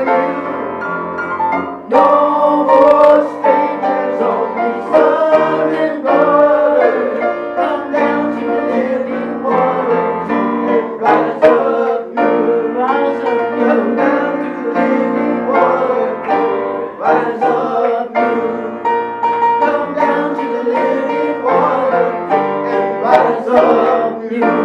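Contemporary worship song with piano, instruments and singing.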